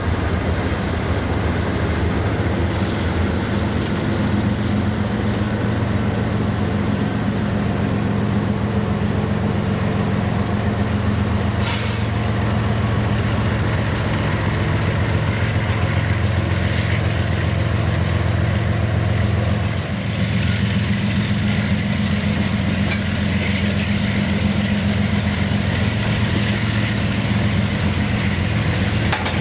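Diesel locomotive engine running steadily under a CSX train, with a short burst of air hiss about twelve seconds in.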